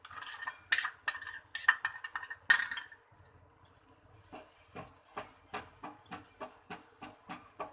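Metal spoon stirring and scraping in a pan, first in a dense clatter, then in regular strokes about three a second.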